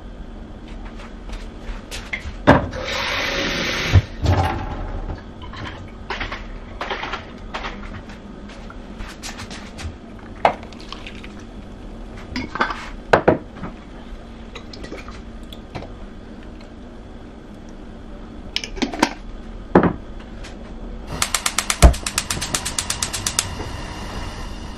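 A glass bottle of tomato passata is handled and poured over fish and vegetables in a stainless steel pot. The bottle knocks and clinks against the pot, with a short noisy stretch of the sauce pouring and splatting. Near the end comes a fast, even run of sharp clicks, finished by one heavy knock.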